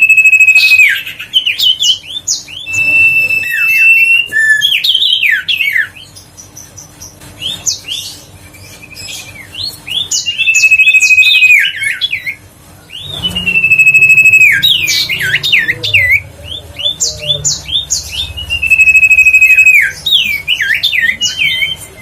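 Common iora (sirtu, cipoh) singing a loud lure song: a long level whistle followed by a quick run of dropping and rising notes, repeated about five times, with faint scattered chirps between phrases.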